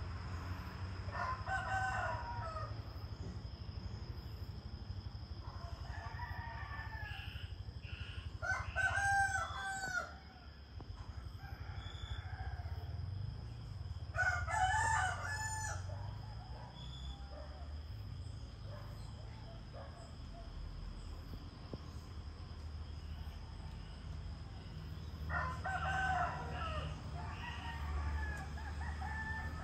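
Roosters crowing several times, each crow lasting a second or two, over a low steady rumble.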